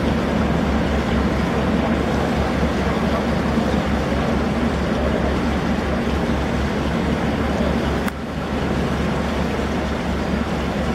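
A small harbour oil tanker's diesel engine runs with a low, even pulsing beat as the vessel moves close by, over a steady wash of wind and water noise. About eight seconds in there is a brief click and a short dip in level.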